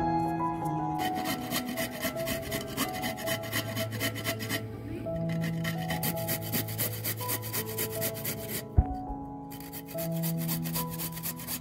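Carrot being grated on a stainless steel box grater: fast, even rasping strokes that begin about a second in and stop briefly twice, with a single knock in the second break. Soft background music plays underneath.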